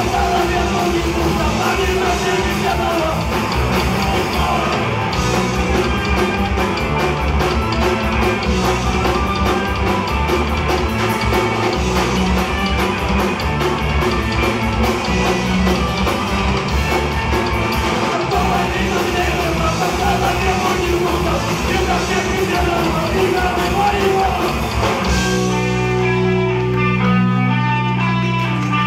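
Live Oi! punk rock band playing loud with distorted electric guitars and a drum kit. About three seconds before the end the drums and cymbals drop out, leaving the guitars playing a riff alone.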